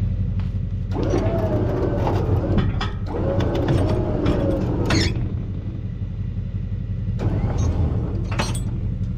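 A vehicle engine idling with a steady low drone, with scattered clanks and knocks over it.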